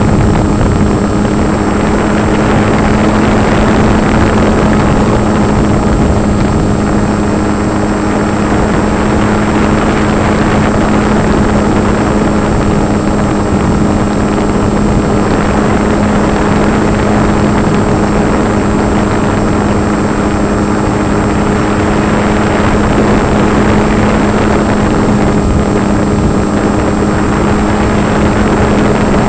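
Electric motor and propeller of a foam RC plane in flight, recorded by a camera mounted on the plane: a steady drone holding one pitch, over heavy wind noise on the microphone.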